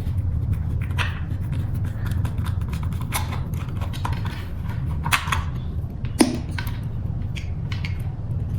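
Scattered clicks and knocks of tools and small parts being handled while screws are taken out of an electric scooter's controller cover, with one louder knock a little past the middle, over a steady low hum.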